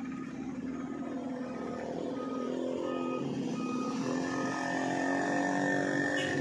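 Engines of small vehicles passing close on a road, a pickup, a motorcycle and a car, getting louder toward the end. A truck's reversing beeper sounds in short, repeated beeps over the engines.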